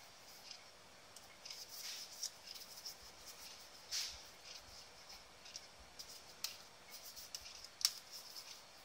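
Soft rubber inner shell of a two-part phone case being pressed into its hard outer frame by hand: faint rubbing and scraping with scattered small clicks and snaps, the sharpest about four seconds in and near the end.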